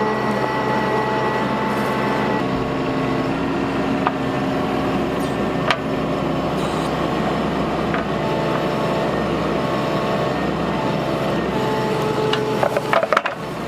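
Bobcat mini excavator's diesel engine running steadily under hydraulic work while digging clay soil, its note shifting about two seconds in. A few sharp knocks come through, with a quick cluster of clacks near the end.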